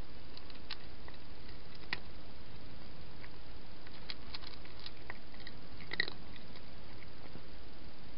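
A cat eating, with small crunching clicks scattered irregularly over a steady hiss; the loudest crunch comes about six seconds in.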